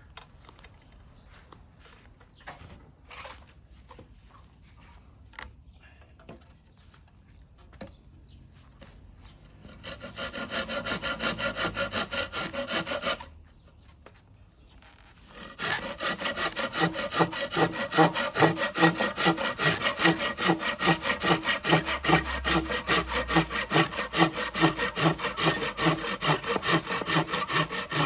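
Hand saw cutting through wood in quick, even back-and-forth strokes, about three a second. A few light taps of handling come first, then a short bout of sawing about ten seconds in, a pause, and a longer, louder bout from about halfway.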